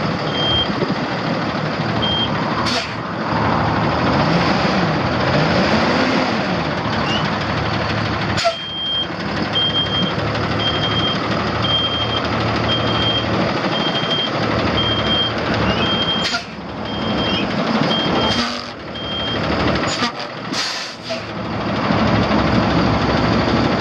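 Vehicle backup alarm beeping at a steady pace, about one beep a second, over a constant noisy rumble with a few brief knocks.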